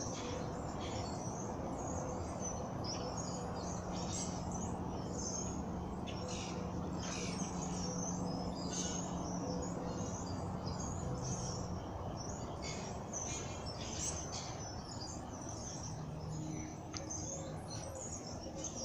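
Several birds chirping and singing, calls overlapping and following each other without a break, over a steady low background hum.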